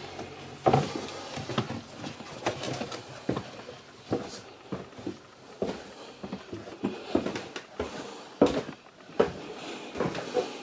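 Footsteps going down a steep wooden companionway stair, irregular knocks and clicks of shoes on the treads with some rustle.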